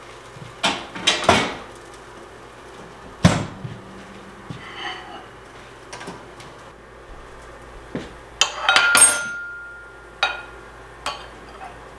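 Kitchen utensils, metal tongs among them, clinking and knocking against ceramic plates on a counter. The sound comes as separate knocks with pauses between them, and a tight cluster of clinks about nine seconds in leaves a brief ringing tone.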